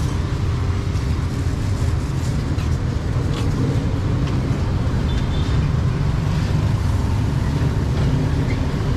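Steady street traffic: vehicle engines running with a continuous low hum, and a few faint clicks.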